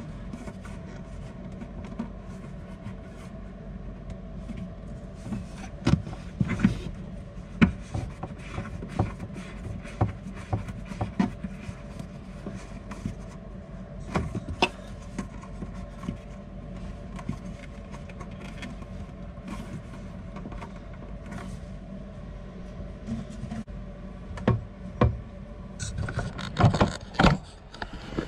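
Scattered clicks and knocks of faucet water supply-line nuts and fittings being screwed on by hand under a sink, over a steady low hum, with a cluster of louder knocks near the end.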